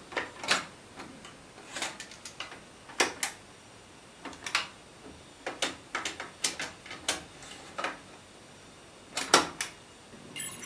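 A run of sharp, irregular mechanical clicks and clacks, about twenty over some ten seconds, from the Aiwa NSX-S52 hi-fi system being handled and operated while no music plays.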